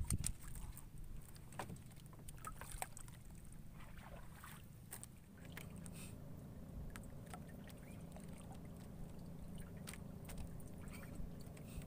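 Faint wind and water lapping around a small wooden boat at sea, with scattered light knocks against the hull. A steady low hum sets in about halfway through.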